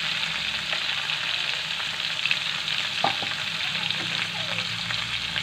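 Steady sizzling and bubbling in an aluminium wok, where water has been added to hot oil with garlic and onion browned in it, the base for a gravy. There is a brief click about three seconds in.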